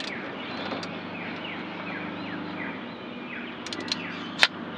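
Ratcheting crimping tool closing a crimp on a cable connector: a few light ratchet clicks, then one sharp click near the end as the ratchet lets go, the sign that full crimping pressure has been reached. Behind it, a bird repeats a short falling chirp over a steady low hum.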